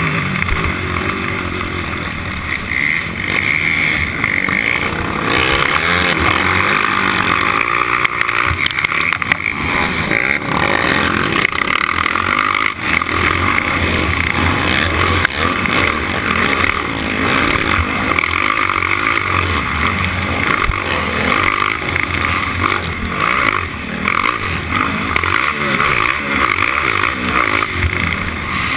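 Four-stroke race quad's engine revving up and down as it is ridden hard around a dirt motocross track, heard from the onboard camera.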